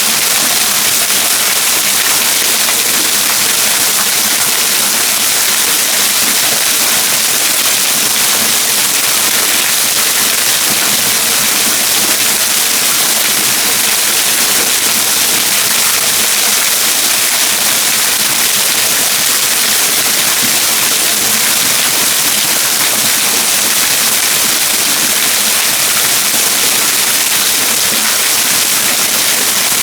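Waterfall splashing: a loud, constant rush of falling water that stays even throughout.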